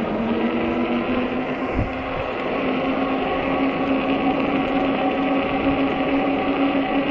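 Ecotric 48V fat-tire e-bike's hub motor whining steadily as the bike rolls along, its pitch rising a little about two seconds in, over a constant rush of wind and tyre noise.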